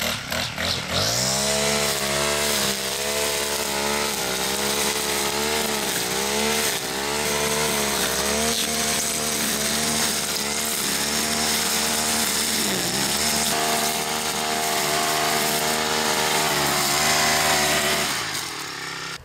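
Poulan Pro PP428S string trimmer's two-stroke engine revving up from idle and running at high throttle as its line cuts dry grass and weeds, the revs dipping briefly now and then under load and dropping back near the end. It holds full throttle without bogging, its high-speed carburettor screw turned out to richen a too-lean mixture.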